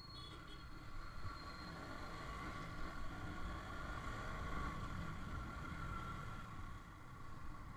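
Yamaha R15 V3's single-cylinder engine running as the motorcycle pulls away and rides on, getting louder over the first few seconds as it picks up speed. Wind rumbles on the bike-mounted microphone.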